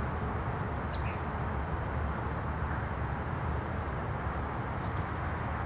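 Outdoor background: a steady low rumble with a few short, faint bird chirps.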